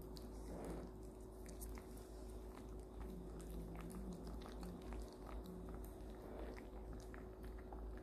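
Maltese dog gnawing a stick chew treat held in its paws, making soft, irregular crunching clicks.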